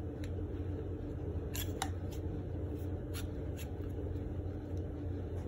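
A few light, short metallic clicks as the new aluminum valve assembly is worked into the air rifle's pump tube, over a steady low background hum.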